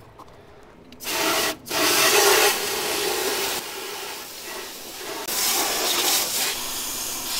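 Water jetting from a garden hose spray nozzle onto a hot engine bay and hissing and splashing on the metal. It starts about a second in, breaks off briefly just after, then goes on.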